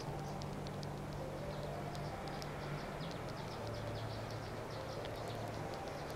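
Outdoor ambience: many quick, short, high chirps in an irregular stream over a low, steady mechanical hum that shifts pitch slightly a few times.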